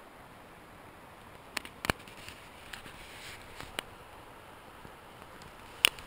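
Scattered sharp snaps and crackles of footsteps in dry leaves and twigs over a faint steady hiss, with a quick cluster of louder snaps near the end.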